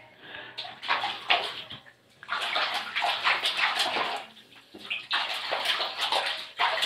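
Running water splashing over a short-haired dog being washed in a bathtub, coming in spells with short breaks.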